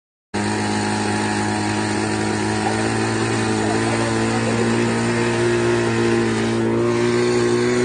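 A home-built model aeroplane's nose-mounted motor spinning its propeller on the ground, a steady engine-like hum whose pitch creeps slowly upward. The sound cuts in abruptly just after the start.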